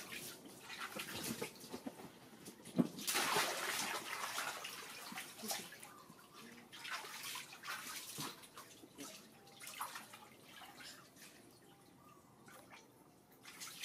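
Water splashing and sloshing in a small inflatable pool as a hand slaps the surface and a young monkey climbs in and swims. A sharp splash about three seconds in leads into a couple of seconds of heavy splashing, then lighter lapping that gets quieter toward the end.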